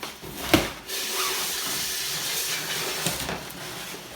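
Statue packaging being handled: a sharp knock about half a second in, then a steady hissing rustle of cardboard or foam packing sliding and rubbing for about three seconds.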